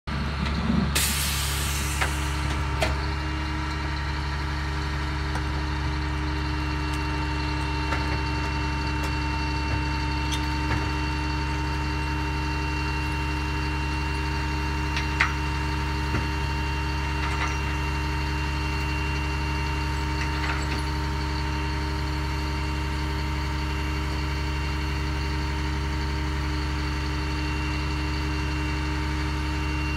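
Dump truck's diesel engine idling with a steady, unchanging drone. There is a short rustle about a second in and a few light clicks.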